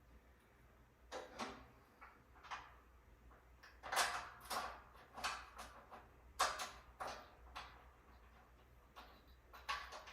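Faint, irregular short clinks and scrapes, about a dozen, of metal bed-frame parts and hardware being handled during assembly.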